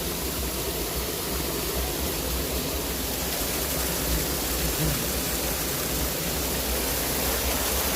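Steady rushing of water falling over a river waterfall.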